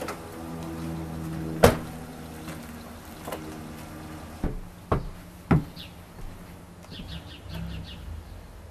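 A car door slammed shut once, sharply, a little under two seconds in, over a low steady hum. Three more sharp knocks follow a few seconds later, then a quick run of high chirps near the end.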